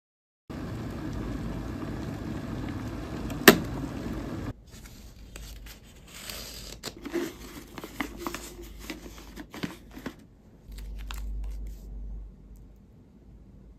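About four seconds of steady rushing noise with one sharp click, then the crinkling of a foil coffee bag being handled, with scattered light clicks and taps.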